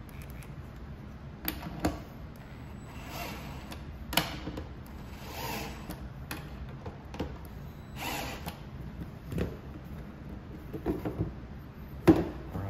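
A hard plastic electrical box and a small cordless power tool being handled: scattered knocks and clatter, the sharpest near the end, with a few short bursts of noise in between rather than a sustained run of drilling.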